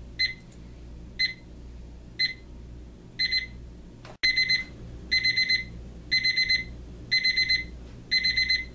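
Advance 6200 battery alarm clock's electronic beeping alarm, building up as an ascending alarm. It starts with single high beeps once a second, then from about three seconds in turns to quick bursts of about four beeps each second.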